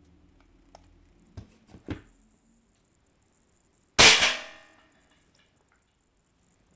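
Upgraded Snow Wolf M24 spring airsoft sniper rifle firing a single 0.90 g steel BB at about 6.5 joules: one loud, sharp shot about four seconds in, with a short ringing tail. A few light clicks and knocks of handling come first.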